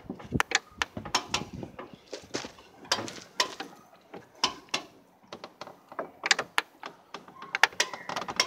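A hand-worked ratcheting lever mechanism being pumped: a run of sharp, irregular metal clicks and clanks, several a second.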